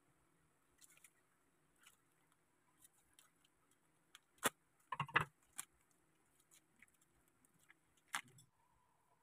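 Plastic bag crinkling and sharp knocks on a wooden cutting board as hands press down on smoked fish through the bag. There is a cluster of knocks about four and a half to five seconds in and one more near the end.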